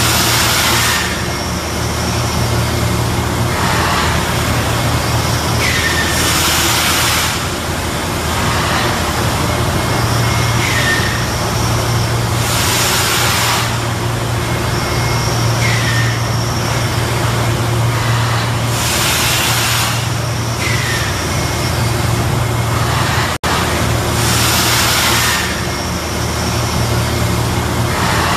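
Thermoforming production machinery running: a steady low hum, loud bursts of compressed-air hiss about a second long every few seconds from the pneumatic valves exhausting, and brief falling squeals in between.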